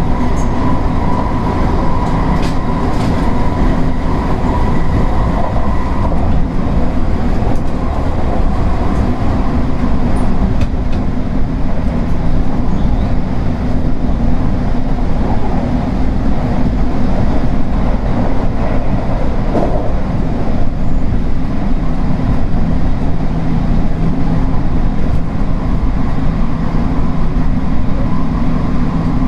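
Steady running noise of a JR West 225-100 series electric train, heard from inside the car, with a steady high whine that stops about six seconds in.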